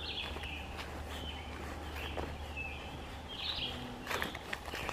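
Songbirds giving short, high chirping calls, repeating roughly once a second. A hiker's footsteps on the dirt-and-leaf trail are heard, loudest a little after four seconds in.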